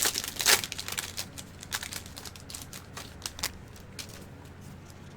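Crinkling and rustling as foil trading-card packs and cards are handled, a quick run of sharp rustles that thins out after about three and a half seconds.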